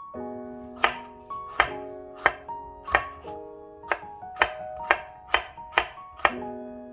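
Kitchen knife slicing garlic cloves on a wooden cutting board: about ten sharp taps of the blade against the board, roughly every half second.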